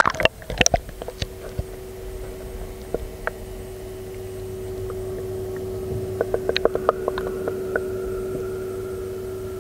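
An action camera goes into a swimming pool with splashing, then records muffled sound underwater: a steady low hum and a run of light clicks or taps about six to seven seconds in.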